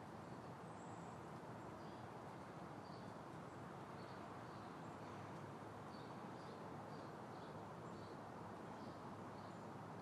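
Faint outdoor backyard ambience: a steady low rush with small high chirps repeating irregularly, roughly twice a second.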